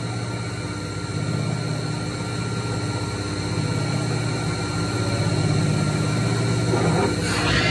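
Electric wood copy lathe running steadily with a low hum while a square wood blank spins between its centres. Near the end a louder rushing noise comes in as the copying cutters start on the blank.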